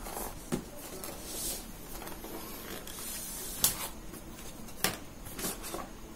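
Cardboard packaging being handled as an action-camera box is opened: the printed sleeve slides off and the lid of the white inner box is lifted, giving faint rustling and scraping with a few short sharp taps, the loudest about midway and again near the end.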